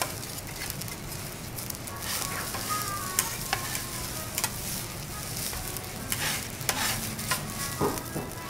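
Garlic fried rice sizzling on a hot steel teppanyaki griddle while two metal spatulas chop, scoop and pile it, with frequent sharp clicks and short squeaky scrapes of metal on the steel plate.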